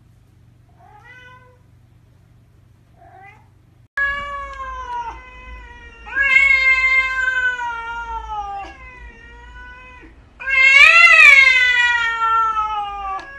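Two faint short cat meows, then, from about four seconds in, a cat yowling: three long, drawn-out cries, each sliding down in pitch, the last one the loudest.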